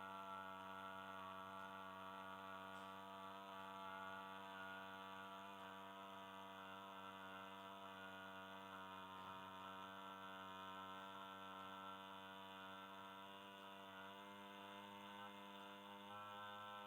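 A low voice sustaining a long, steady "aa" (आ) vowel on one pitch, rich in overtones, as a chanted or toned drone; faint.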